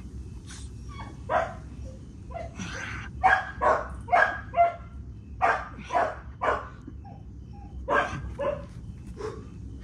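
A dog barking: a string of about a dozen short, sharp barks, irregularly spaced, some coming in quick pairs.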